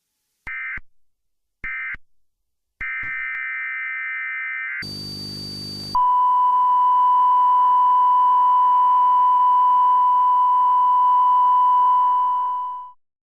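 Recreated Emergency Alert System audio. Two short screeching digital data bursts and a longer one, then about a second of harsh static with a high whistle, then a single steady, loud alert tone held for about seven seconds before it fades out.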